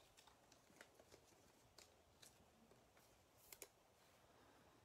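Near silence, broken by a few faint, scattered ticks of trading cards being handled.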